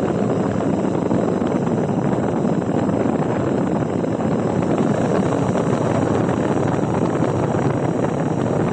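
Small battery-powered portable fan running steadily: a constant rush of air with a faint high motor whine above it.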